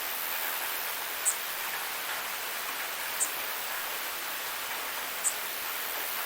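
Waterfall water rushing steadily in an even hiss. A short high chirp sounds three times, about every two seconds.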